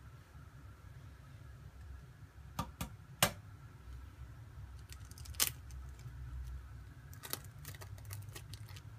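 An egg tapped several times against the rim of a porcelain bowl to crack its shell: a few sharp, irregular clicks, the loudest about three seconds in, over a low background hum.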